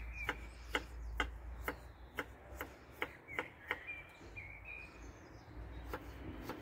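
Chef's knife chopping garlic cloves on a wooden cutting board: sharp knocks of the blade on the board, about two a second, that stop about four seconds in, with one more near the end.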